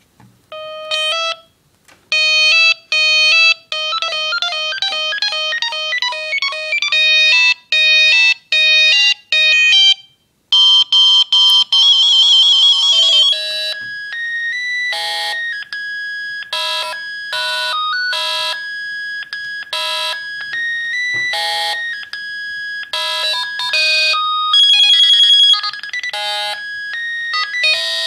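Philips Fisio 625 mobile phone playing its built-in ringtones, electronic beeping melodies. A fast tune of short notes plays first. After a brief break about ten seconds in comes a short warbling trill, then a slower tune of longer held notes.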